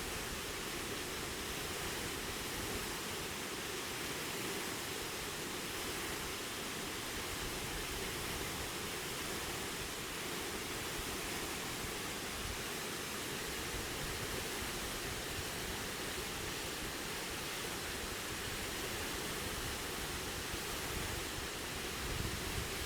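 Steady, even rush of a waterfall: falling water making a continuous hiss without change.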